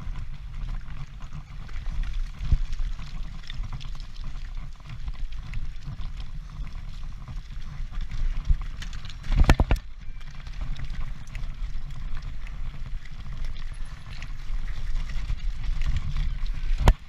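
Mountain bike rattling and clattering over rough trail at speed, with a steady low rumble of wind on the helmet camera and a quick cluster of heavier knocks about nine and a half seconds in.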